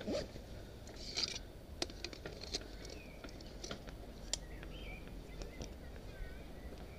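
Scattered sharp clicks and a brief rustle as a camera and its bag are handled, with a few short bird chirps in the background in the second half.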